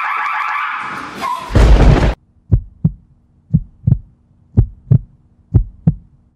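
Heartbeat sound effect: four lub-dub double thumps, about one a second, over a faint low hum. It follows a loud low thud about a second and a half in, and a buzzing, alarm-like tone that fades out in the first second.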